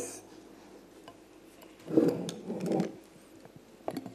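Handling noise from a lapel microphone being clipped onto a shirt: small clicks and a muffled rustling, thumping burst about two seconds in.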